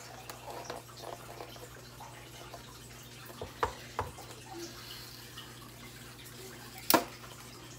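Aquarium filter trickling water steadily with a low hum, under light handling of a paper bag being fitted into a hand paper crimper. A few short clicks, the loudest a sharp click about seven seconds in.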